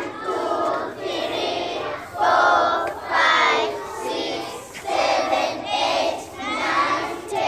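A group of young children singing an action song together, in short, loud phrases with brief breaks between them.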